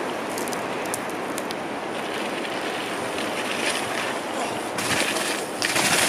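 Steady wind noise on the microphone, then a mountain bike coming down a muddy, snowy trail, its tyres tearing through the mud as it passes close near the end.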